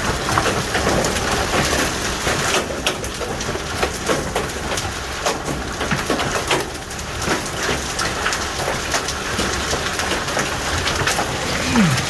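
Hail storm: hailstones and rain pelting down hard, a steady loud hissing rush dotted with many sharp individual hits.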